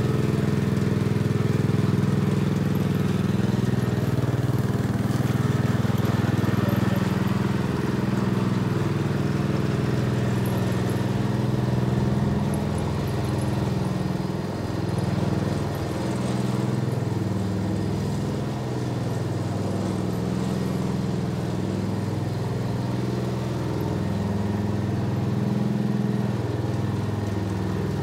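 Small gasoline engine of a walk-behind lawn renovation machine running steadily under load as it roughs up the turf, its pitch wavering slightly and dipping briefly about halfway through.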